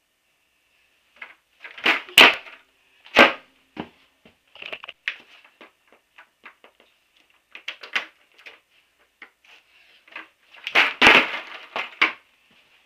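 Skateboard knocking and clacking on pavement in an irregular string of sharp hits. The loudest come about two seconds in, again a second later, and as a cluster near the end.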